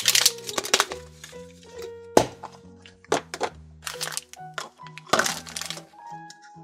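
Plastic wrapper crinkling as it is peeled off a plastic surprise egg, a sharp snap about two seconds in as the egg halves pop apart, then tissue paper rustling as the toy inside is unwrapped, over light background music.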